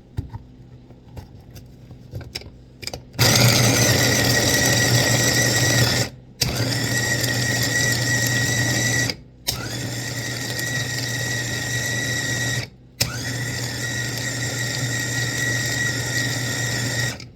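Electric kitchen blending appliance grinding peanuts into crunchy peanut butter: after about three seconds of quiet its motor starts and runs steadily in four runs of about three to four seconds, stopping briefly three times between them.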